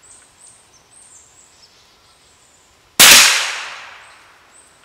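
A single shot from a Savage Mark II FV .22 LR bolt-action rifle firing a CCI standard-velocity round, about three seconds in: one sharp report that rings out and fades over about a second and a half.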